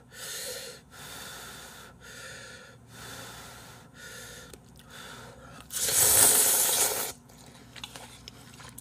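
Short breathy puffs of someone blowing on a lift of hot instant ramyeon noodles held on chopsticks, about one a second, then one loud slurp of the noodles lasting about a second and a half, followed by faint chewing and small clicks.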